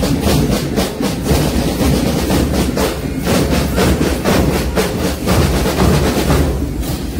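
Loud, fast rhythmic drumming, about four to five beats a second, over a dense low rumble.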